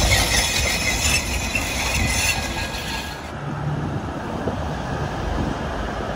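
Train running on the track: rolling wheel and rail noise with a high hiss. About three seconds in it cuts abruptly to a V/Line VLocity diesel railcar passing, a duller rumble with a steady low engine hum.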